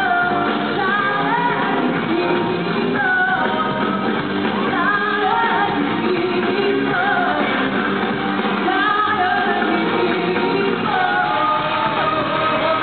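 A woman singing a pop song live into a handheld microphone over a full backing band, recorded from the audience.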